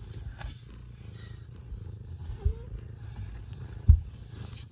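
Mother cat purring steadily while her kittens nurse, a low continuous rumble, with two soft thumps in the second half.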